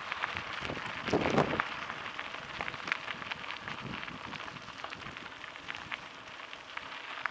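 Mountain bike rolling along a gravel and dirt trail, its tyres crackling over grit with many small clicks and rattles, and a louder rush about a second in.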